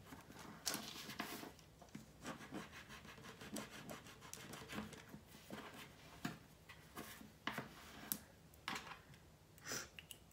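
X-Acto craft knife blade scraping and shaving the excess ridge off the top edge of an epoxy resin bangle, in short irregular strokes. The resin is still slightly flexible, not fully cured, so it cuts easily.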